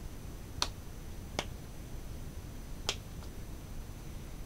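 Hands striking each other in sharp slaps or claps while signing, irregularly spaced. Three clear ones fall within the first three seconds, with a faint fourth just after.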